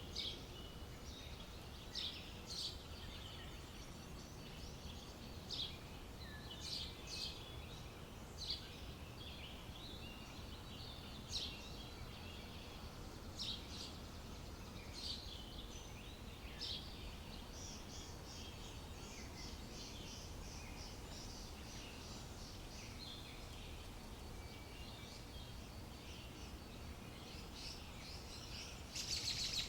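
Small birds chirping, with short high calls every second or two over a steady low background rumble. There is a denser, louder flurry of chirps near the end.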